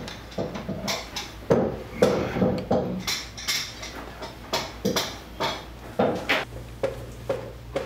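Irregular clattering and knocking, with sharp clicks and clinks, of household things being handled and rummaged through.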